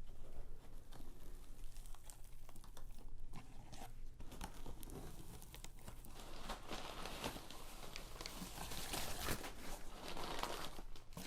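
Paper wrapping crinkling and tearing as a package is unwrapped by hand, with tape being pulled off. The rustling grows busier and louder about halfway through.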